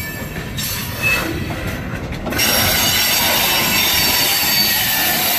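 Loaded centerbeam flatcars rolling slowly past, their steel wheels squealing high against the rail over a low rumble of the wheels on the track. The squeal eases briefly, then grows louder about halfway through.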